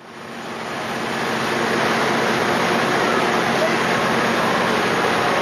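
Steady rushing wash of water and wind aboard a sternwheel steamboat, rising in over the first second or two.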